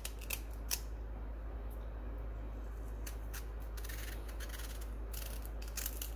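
Small kitchen knife cutting and scraping the thick skin off a raw green banana: scattered short, crisp clicks, with a few longer scrapes after about four seconds.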